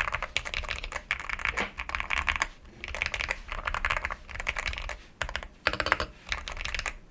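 Typing on an Akko MOD007 HE mechanical keyboard with stock Kailh Pink switches: fast runs of keystrokes broken by short pauses, with a few louder strokes about six seconds in.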